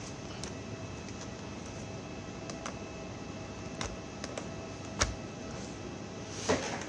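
Scattered light clicks and taps of small plastic and metal parts being handled during work on a tablet laptop, with a sharper knock about five seconds in and another near the end, over a steady background hum.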